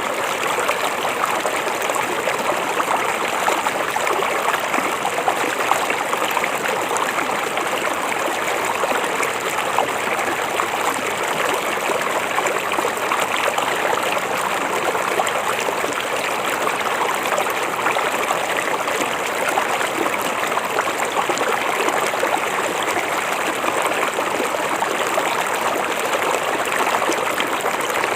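A river flowing steadily over rocks, a constant even rush of water with small splashes and trickles.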